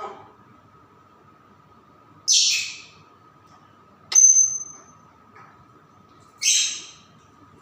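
Pet hill myna giving three short, raspy calls about two seconds apart. The middle call opens with a sharp click and a brief high whistle.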